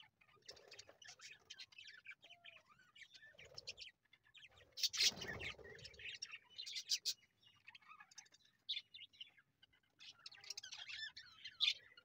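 A flock of budgerigars chirping and chattering continuously in quick, high chirps, with a louder rushing burst of noise about five seconds in.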